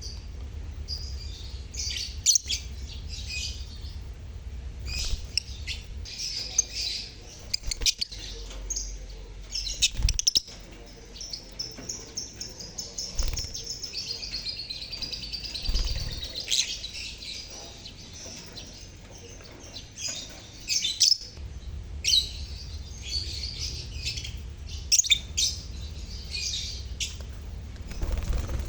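A colony of lovebirds (Agapornis) chirping and chattering together, many short high calls overlapping without a break, with a low rumble underneath in some stretches.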